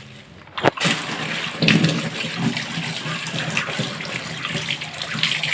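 Kitchen tap water starts running just under a second in and then pours steadily, rinsing a frozen rohu fish to thaw its ice so it can be cut.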